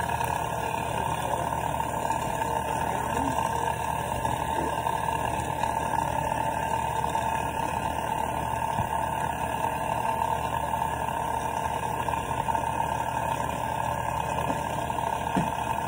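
Electric kitchen mixer running steadily, with a constant motor whine.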